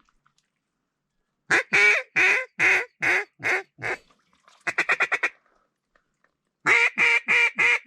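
Mallard duck call blown by a hunter: a series of about seven loud quacks, a quick run of short chattering notes, then another series of quacks, calling to a circling mallard drake to bring it into the decoys.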